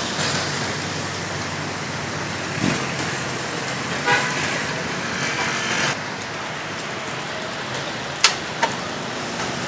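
Street traffic noise with a vehicle horn tooting briefly around the middle, and two sharp metallic clicks near the end as tongs turn meat on a wire grill rack.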